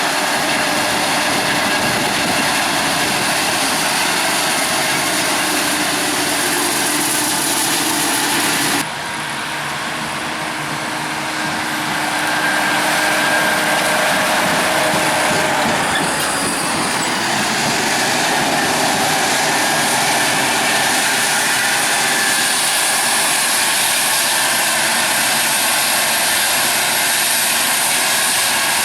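Heavy maize-harvesting machinery, a forage harvester and tractors, running steadily and loudly. The sound changes abruptly about nine seconds in and grows louder again a few seconds later.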